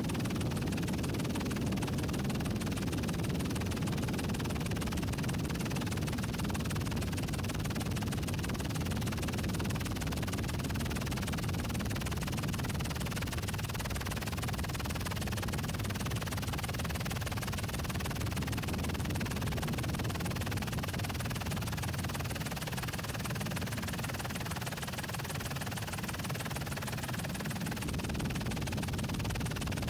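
Steady low rumble of a helicopter, heard from inside the cabin where the camera is.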